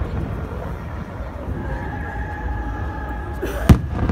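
Fireworks display: a single aerial shell bursts with one sharp, loud bang near the end, over a steady murmur of the watching crowd. A faint steady whistling tone runs for a couple of seconds before the bang.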